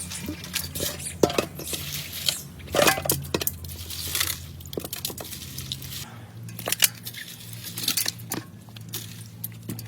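Irregular clinks, knocks and clatter of pots, dishes and utensils being handled, with a few louder knocks, over a steady low hum.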